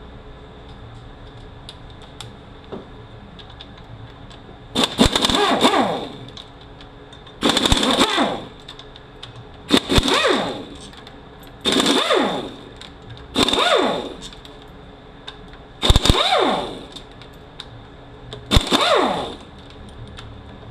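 Impact wrench hammering out T45 Torx bolts on a Mercedes 722.9 automatic transmission case, in about seven short bursts of roughly a second each, the motor's pitch falling off after each one.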